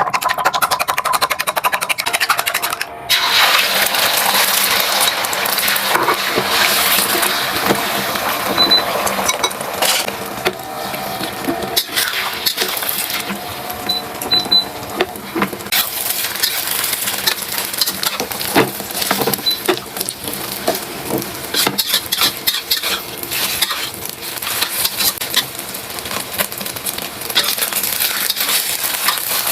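Food sizzling in a hot pan while a utensil stirs it, with frequent clinks and scrapes against the pan.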